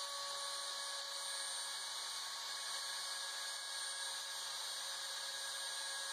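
Homemade CNC router's spindle motor running steadily with a high whine and hiss while its bit mills a white plastic sheet.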